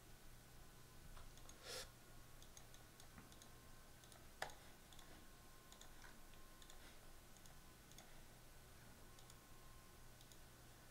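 Faint, scattered computer keyboard and mouse clicks in near silence over a faint steady low hum, with one sharper click about four seconds in.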